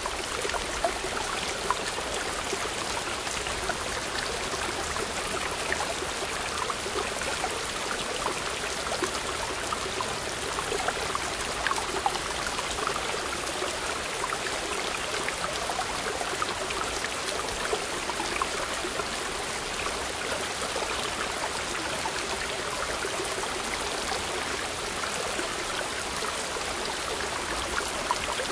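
Mountain stream rushing over boulders in a small cascade: a steady sound of running, splashing water.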